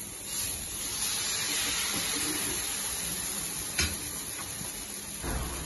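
Dosa batter sizzling with a steady hiss as it is spread in circles with a ladle over a tawa heated on high flame. A sharp tap comes about four seconds in, and a low bump near the end.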